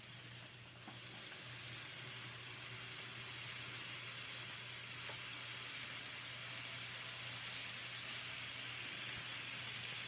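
N-scale model train running along the layout track: a steady, faint whirring hiss of the small motor and wheels on rail over a low hum, getting slightly louder after the first couple of seconds.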